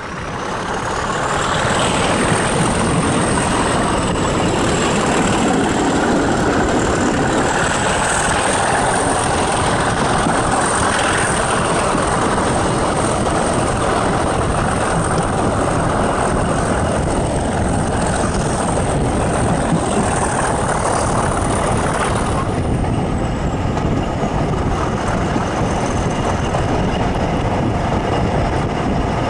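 BR Class 37 diesel locomotive 37216, with its English Electric V12 engine, hauling the train: a steady loud engine drone mixed with wheel-on-rail rumble and air rushing past the open carriage window. A high thin whine rises in the first seconds, holds, then slides down and fades about twenty-two seconds in.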